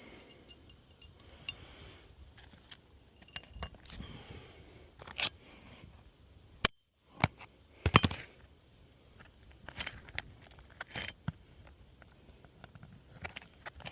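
Roofing nails being handled and driven back into 3-tab asphalt shingles: scattered sharp knocks and small metallic clinks. The loudest strikes come a little past halfway through.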